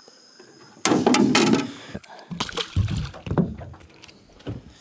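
Water splashing loudly for about a second, then a run of scattered knocks and clunks.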